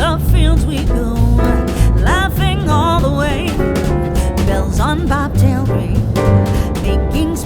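Background music: a song with a wavering sung vocal over a steady drum and bass beat.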